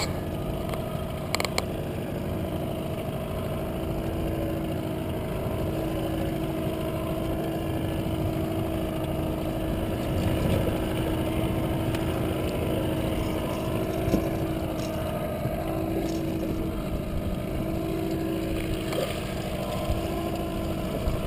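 Mercury outboard motor running steadily at trolling speed: a constant engine hum over a low rumble.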